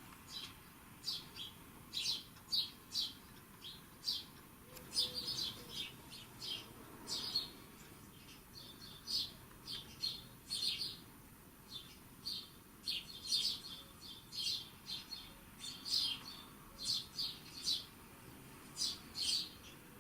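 A recording of songbird birdsong played back in the room: many short, high chirps and trills from several birds, coming every second or so.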